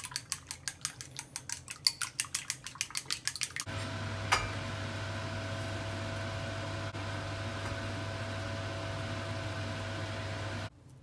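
Chopsticks beating eggs in a ceramic bowl, rapid clicking about six strokes a second. A few seconds in this gives way to a steady hum and hiss at the stove, with one sharp metallic clack of tongs on a pot lid just after; the hum stops suddenly near the end.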